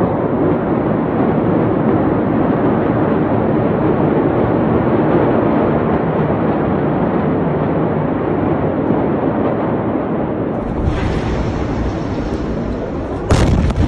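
A steady loud rushing noise. About eleven seconds in a deeper rumble with hiss swells up, and near the end comes a sudden, much louder blast: the shock wave of the Beirut port explosion reaching the phone's microphone.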